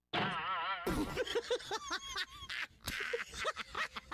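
A comic sound effect of high-pitched, quacking, voice-like calls: one long wobbling call, then a quick string of short, bending squawks.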